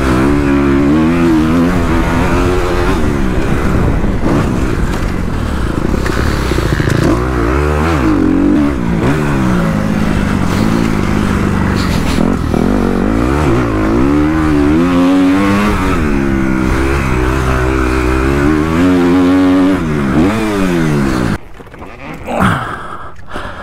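Motocross bike engine being ridden hard, its pitch climbing and dropping over and over as the throttle is opened and closed. It falls away suddenly near the end.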